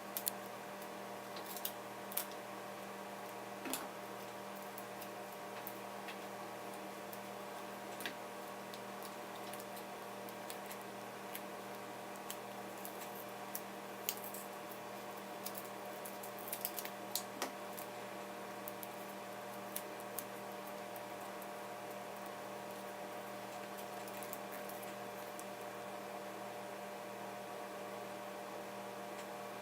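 Steady electrical hum under scattered, irregular light clicks and taps of small parts and tools being handled during laptop repair work.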